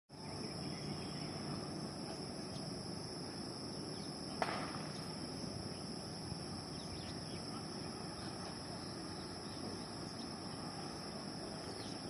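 Insects chirring in a steady high-pitched drone over faint outdoor background noise, with a single sharp click a little over four seconds in.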